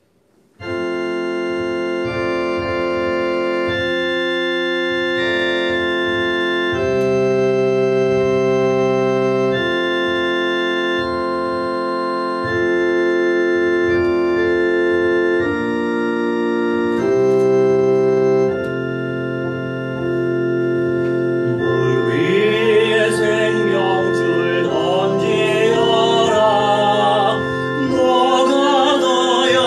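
Electronic keyboard playing a slow hymn on an organ sound, with chords held steady and changing every second or two. About 22 seconds in, a man's voice begins singing the hymn over it.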